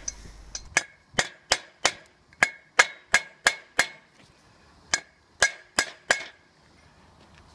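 Lump hammer tapping a new rear wheel bearing's outer race down into a Nissan Micra brake drum: about a dozen sharp metallic knocks, roughly three a second, each with a short ring. The knocks pause briefly a little past halfway, then resume and stop about two-thirds of the way through, as the bearing reaches its seat.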